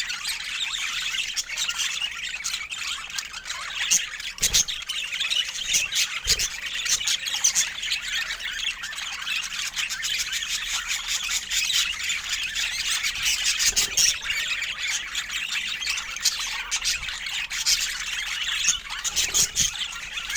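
Pet budgerigars chattering without pause, a busy warble broken by frequent short squawks and chirps. A couple of soft low thumps come in the first third.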